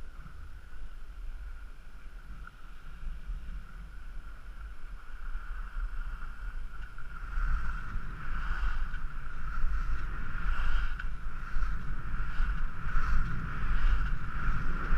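Skis hissing and scraping over groomed snow during a downhill run, with wind rumbling on the action camera's microphone. It grows louder about halfway through as speed picks up, with a run of short swishes as the skier turns.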